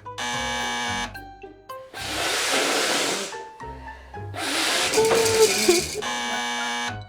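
A woman blowing her nose loudly twice, two long noisy honks about a second apart, between short stretches of background music chords.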